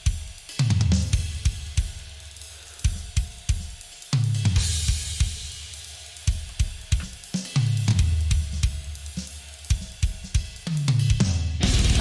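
Metal song playing: a drum-led passage of cymbal, snare and kick hits, with deep bass notes sliding downward about every three and a half seconds. Just before the end the full band crashes in.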